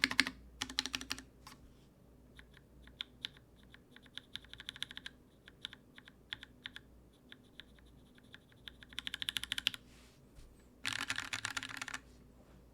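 Typing on a mechanical keyboard with lubed, filmed, spring-swapped Cherry MX2A Orange switches in an aluminium plate with no foam. A fast run of keystrokes at the start, slower separate presses and short runs through the middle, and another fast run near the end.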